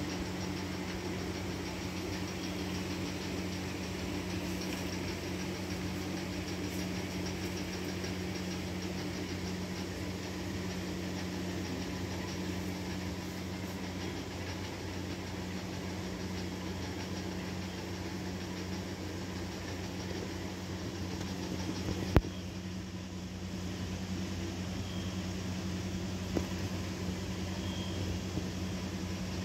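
Steady low mechanical hum, with a sharp click about three-quarters of the way through.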